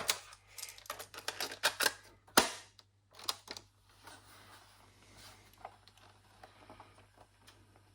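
Plastic clicks and knocks of a cassette tape being handled and loaded into a cassette player, with its buttons being pressed, in a quick cluster over the first few seconds, then only a few faint clicks.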